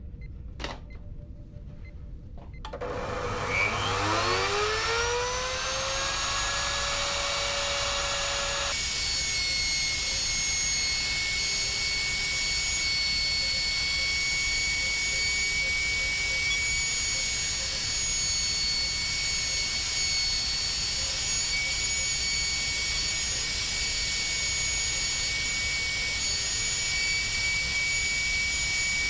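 Router in a router table starting up, its whine rising in pitch over a few seconds and settling at full speed. Then a steady, higher, hissier whine runs on as a wooden frame is fed past the bit to round over the edges of its viewing window.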